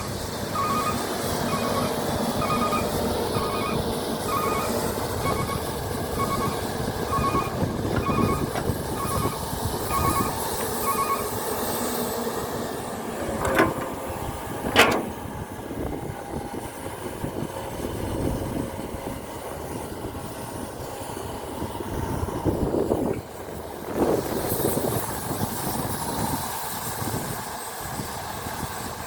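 Heavy machinery at work, an excavator loading soil into a dump truck: a steady engine running throughout, with a reversing alarm beeping about once a second for the first ten seconds or so. About halfway through come two sharp knocks, and engine surges swell a little later.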